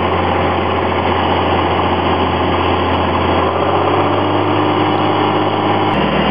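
Cessna 182S's six-cylinder Lycoming IO-540 engine and propeller running steadily, heard from inside the cockpit. The engine note shifts about three and a half seconds in and changes again near the end.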